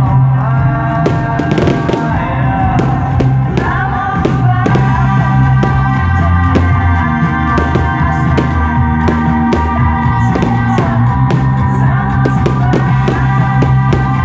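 Fireworks going off in many quick, irregular bangs and crackles, starting about a second in, over loud music with sustained notes and a heavy bass line.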